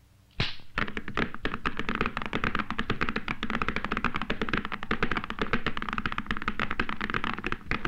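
Cartoon sound effect of a team of horses' hooves clattering rapidly on cobblestones as a horse-drawn coach sets off, a dense run of knocks that begins with a single sharp crack about half a second in.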